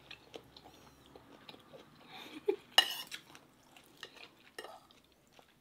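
Metal forks and spoons clinking and scraping against plates and a glass bowl during a meal, in scattered soft clicks with one louder clatter about three seconds in.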